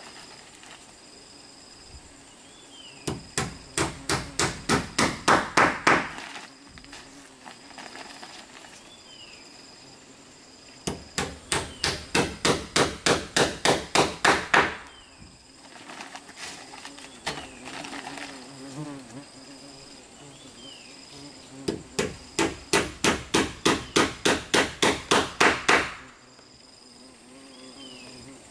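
A hammer driving nails into wooden floorboards, in three runs of a dozen or so quick blows, about four a second, each run growing louder toward its end. Insects buzz faintly in between.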